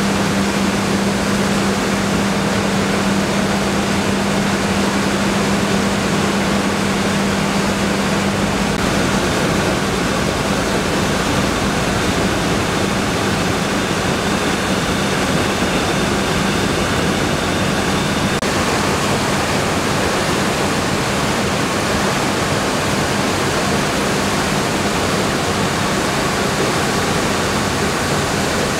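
Rice-milling machinery running: a loud, steady, even rush of noise, with a low hum that fades out about a third of the way through.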